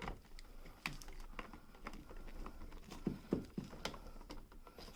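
Irregular small clicks and taps of a rocker light switch and its wire being handled as the wire end is worked into the switch terminal, with a few duller knocks a little past the middle.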